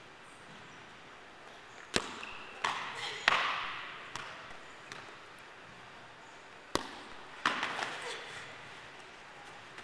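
A ball being struck and hitting a goalkeeper's gloves or body and the floor in a goalkeeping drill, with her landing on a gym mat: sharp hits, three in quick succession a couple of seconds in and two more past the middle, each ringing on in the hall's echo.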